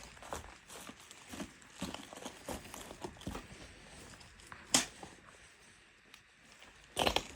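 Footsteps crunching over a debris-strewn floor at a slow walking pace, with one sharp click or snap about two-thirds of the way through. A burst of crunching and crackling comes near the end.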